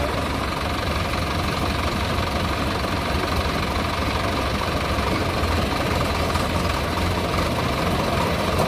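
Diesel tractor engines running steadily, chiefly a Swaraj 855 FE trying to tow a stuck Sonalika DI 750 that is loaded with about 100 quintals of wood.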